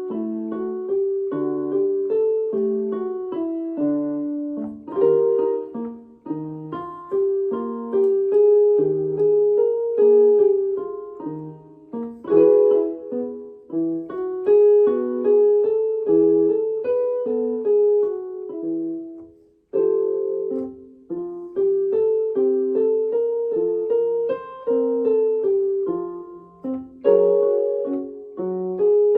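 Piano accompaniment for a vocal exercise: short struck note patterns repeated phrase after phrase, leaving room for the singer to sing along, with a brief break about two-thirds of the way through.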